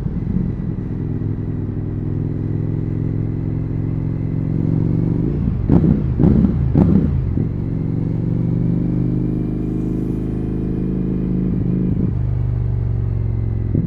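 Indian FTR 1200's V-twin engine and exhaust running steadily, with three quick throttle blips about halfway through that are the loudest moments.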